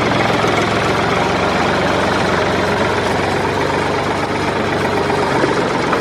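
Tractor engine running steadily at idle, with a fast knocking clatter over a low hum.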